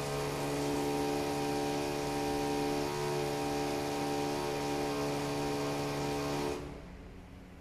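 A steady electrical hum, one unchanging pitch with many overtones, that cuts off suddenly near the end.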